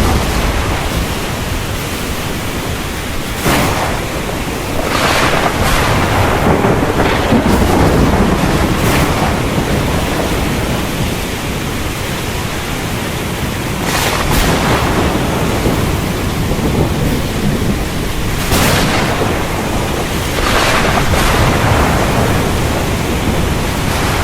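Thunderstorm: lightning cracks about six times, each sharp crack rolling off into a rumble of thunder, over a steady hiss of rain.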